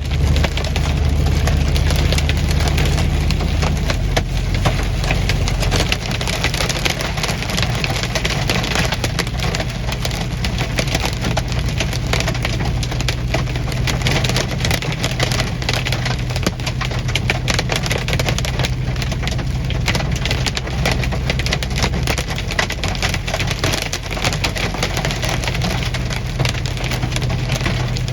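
Hailstones hitting a vehicle in a dense, continuous clatter of small impacts, with the vehicle's engine running low underneath.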